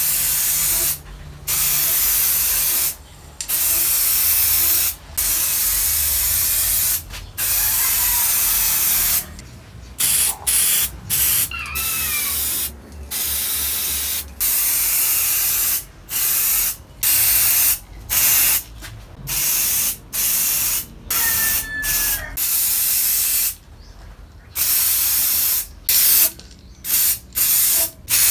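Aerosol spray-paint can spraying in repeated hissing bursts of one to two seconds with short gaps between them. The bursts grow shorter and come more often after about ten seconds.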